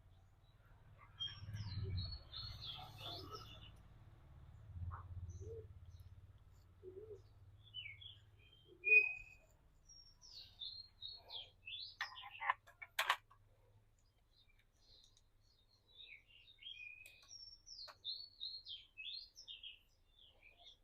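Faint birds chirping in several short bursts of quick high notes, over a low hum that fades out a little past halfway. There is a single sharp click about thirteen seconds in.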